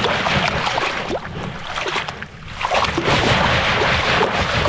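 Creek water sloshing through a hand-held mesh sifter of dug sand and gravel as it is swished underwater to wash the sand out. The splashing comes in two swells, easing off for a moment about two seconds in.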